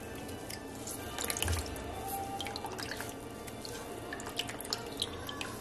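Starchy liquid dripping and trickling from a hand-squeezed cloth bag of grated cassava pulp into a tub of cassava starch water, in irregular drips and small splashes. This is the starch milk being pressed out of the pulp to settle as cassava starch.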